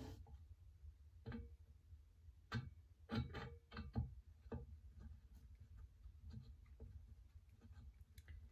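Scattered light clicks and taps of a wrench on small screws and metal stock parts as countersunk screws are snugged into a rifle buttstock plate. The clicks come thickest in a cluster about three to four seconds in and grow sparser and fainter after, over a faint low hum.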